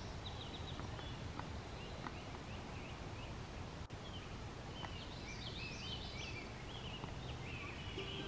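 Woodland ambience: small birds singing in short, high chirping notes, with a busier run of notes about five to seven seconds in, over low steady background noise.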